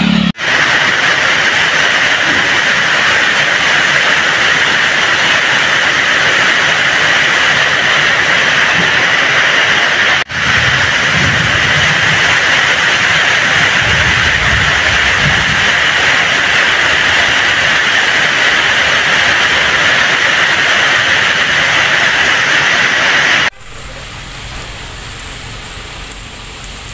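Heavy rain pouring down in a loud, steady hiss, broken twice by short drop-outs. Near the end it gives way to a quieter hiss of rain.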